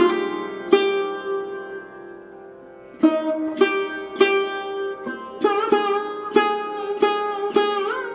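Background music: a solo plucked string instrument playing a slow melody, notes left to ring out, with sliding, bent notes in the second half.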